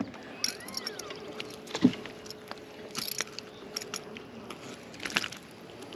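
Scattered light knocks and clicks of handling aboard a bass boat, with a faint steady hum through the middle.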